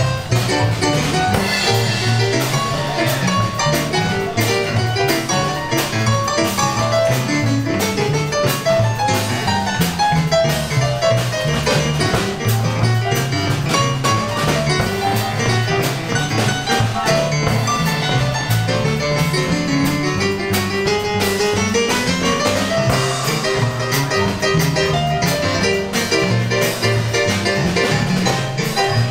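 Live traditional jazz band music: a digital stage piano plays quick runs, one rising run about three quarters of the way through, over a steady bass line and drums with regular cymbal ticks.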